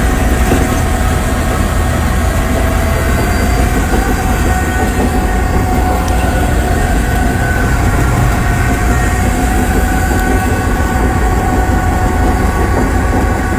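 Cat D9T bulldozer running steadily under way, its diesel rumbling with a steady high whine over the clank of its steel tracks. The whine rises slightly in pitch about four seconds in.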